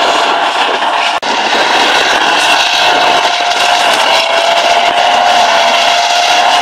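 Soviet T-55 tank driving across a field: its V12 diesel engine runs loud and steady under the track noise, with a thin, high, steady whine over it. There is a brief drop-out about a second in.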